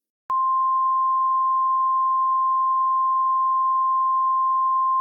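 Emergency Alert System attention tone: a single steady, high-pitched tone that starts about a third of a second in and holds without change. It signals that an emergency alert message is about to be read.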